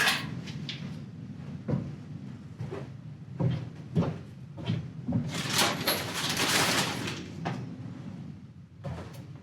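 Nails being pulled out of scrap wood with hand tools: a series of sharp knocks and clunks of tool and wood, and a longer scraping noise of about two seconds, some five seconds in.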